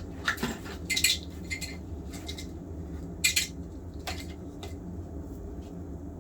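Small hard objects clinking and knocking against each other, in about six short clatters over the first four seconds, over a steady low hum.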